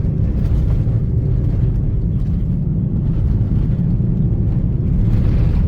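Steady low rumble of a moving vehicle, heard from inside the cabin, with no single event standing out.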